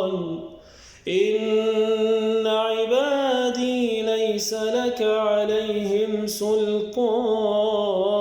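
Unaccompanied male voice reciting the Quran in melodic tajweed style, with long drawn-out notes and ornamented turns. It breaks briefly for a breath about a second in.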